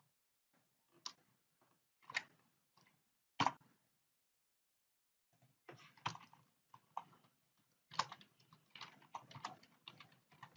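Faint computer keyboard typing: a few separate keystrokes, then a quick run of typing from about five and a half seconds in.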